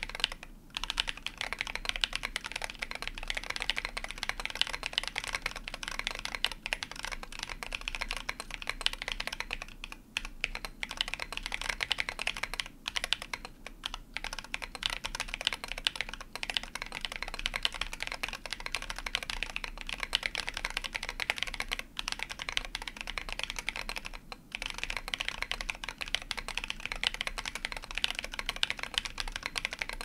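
Fast, continuous typing on a MechMini2 40% mechanical keyboard with lubed Holy GSUS tactile switches (Halo Clear stems in GSUS housings), a brass plate, MT3 keycaps and MK Ultra foam between the PCB and plate and in the case. It gives a dense stream of keystroke clacks with a few short pauses.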